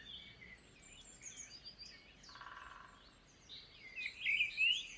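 Sparrow chirping in short sliding notes, sparse and faint for the first few seconds, then louder and busier near the end. A faint short buzz comes about halfway through.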